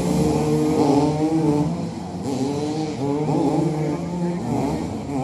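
Several motoball motorcycles' engines revving up and down together, each pitch rising and falling unevenly as the riders jostle for the ball.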